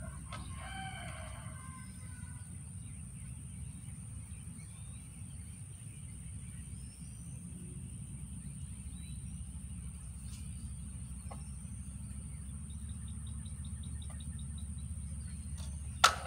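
A single drawn-out bird call, like a crow, about half a second in, followed by faint scattered chirps and a quick ticking trill, over a steady low outdoor rumble. A sharp knock sounds near the end.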